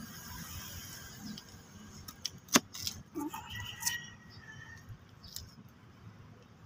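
Handling sounds around a plant pot: a few sharp clicks and light scraping as soil and stems are poked at with a blade. The loudest click comes about two and a half seconds in.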